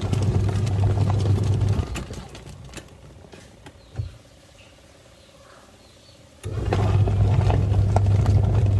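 Twin-tub washing machine's wash motor humming as it churns water, stopping a couple of seconds in and starting again about four seconds later, the pause-and-restart of the wash tub's agitator cycle.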